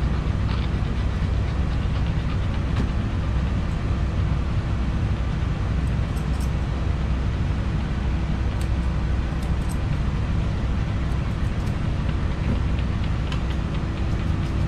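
Steady low machine hum with a faint constant tone running unbroken, with a few faint snips of grooming scissors around the middle.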